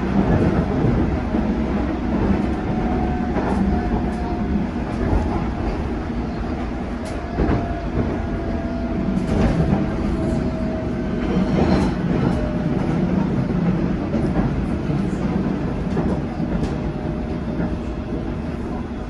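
Passenger-cabin noise of a London Underground S8 Stock Metropolitan line train running at speed: a steady low rumble of wheels on rail with scattered sharp clicks. A faint high tone comes and goes through the first two-thirds.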